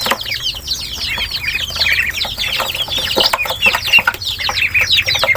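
A flock of ducklings and young chicks peeping constantly as they feed, many short falling high-pitched calls overlapping one another, with scattered sharp clicks.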